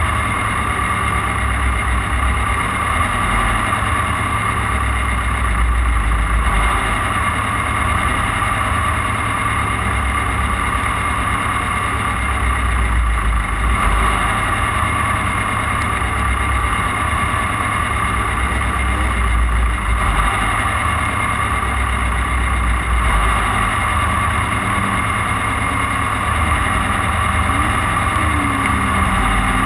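Off-road race car being driven: the engine and running gear make a loud, steady drone over a low rumble, with no sharp changes in pitch or level.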